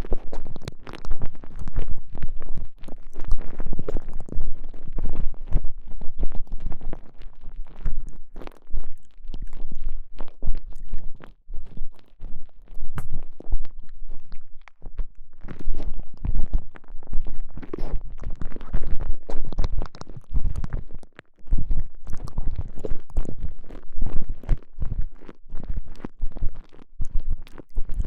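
Microphone inside a TENGA Egg, a soft stretchy elastomer sleeve, being squeezed and rubbed around it. The result is close, irregular rubbing and crackling over low rumbling, coming in uneven surges.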